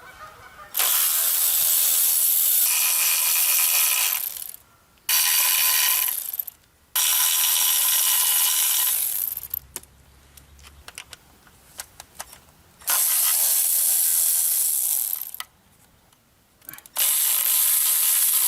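Ratchet wrench running in five spells of a few seconds each, with short pauses between, backing out oil pan bolts.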